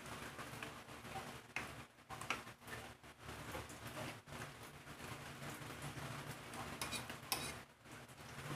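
Metal fork clinking and scraping against a ceramic plate while picking up food, with a few sharp clinks, the loudest about two-thirds of the way through.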